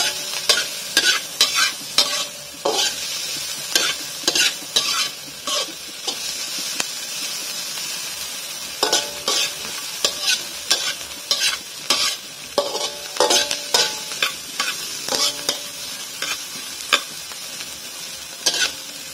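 Onion and chili sizzling in oil in a frying pan while a utensil stirs them, scraping and clacking against the pan in quick, irregular strokes. The strokes pause for a couple of seconds near the middle, leaving only the steady sizzle.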